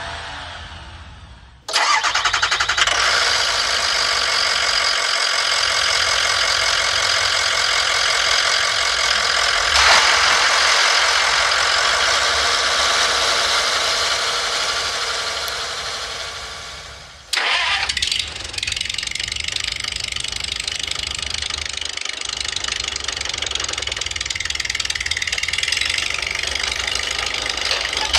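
Dubbed engine sound effect, running steadily. It fades away and starts again abruptly about two seconds in, then fades and restarts once more about seventeen seconds in.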